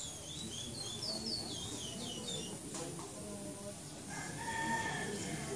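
Curió (chestnut-bellied seed finch) singing a phrase of quick, swooping whistled notes. Near the end comes a lower, held call, the loudest sound here.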